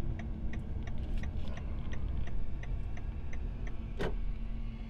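Car's indicator flasher ticking steadily, about three clicks a second, over the low steady hum of the idling vehicle; the ticking stops shortly before a single thump near the end.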